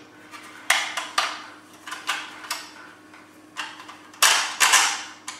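Sharp metal taps and knocks, irregularly spaced and loudest near the end, as a steel barrel is tapped and worked into the slot of a satellite dish's steel bracket.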